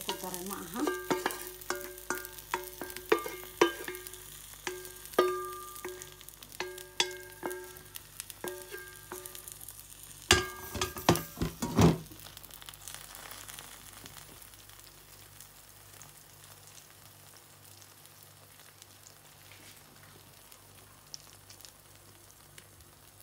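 Eggs and spinach frying in an oiled pan, with a steady sizzle. Over the first ten seconds there is a string of short ringing taps, and a few loud knocks come around the middle; after that the sizzle goes on more quietly on its own.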